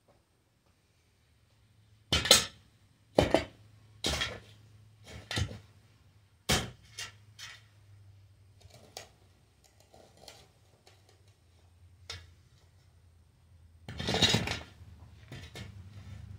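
Long-handled shovel's metal blade striking hard dirt in a run of sharp clinks about a second apart, weaker after the first few, then a longer scrape near the end.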